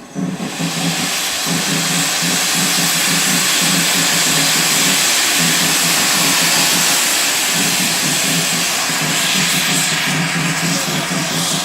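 Steam locomotive blowing off steam: a loud, steady hiss that starts suddenly and holds without a break.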